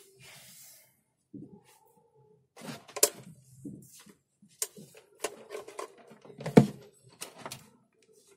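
Scattered handling knocks and clicks as a multimeter and its test leads are moved about and picked up, with two louder knocks, one about three seconds in and one a little past six seconds.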